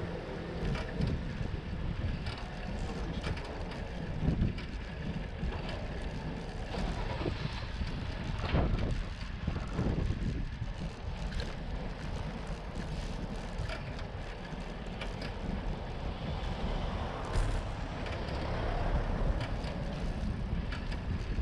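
Bicycle ride along a city street, heard from a handlebar-mounted microphone: wind buffeting the microphone and tyre noise on the road, with frequent small rattles and knocks from the bike over bumps and a few louder knocks.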